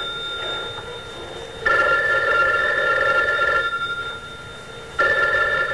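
Telephone bell ringing in repeated rings: one ring of about two seconds begins a second and a half in, and another starts near the end.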